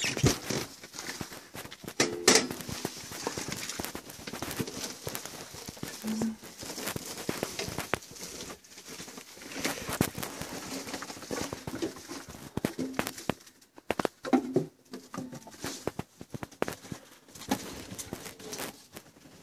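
Irregular knocks and clatter of split firewood being handled and loaded into a metal stove, with a sharp loud knock about two seconds in.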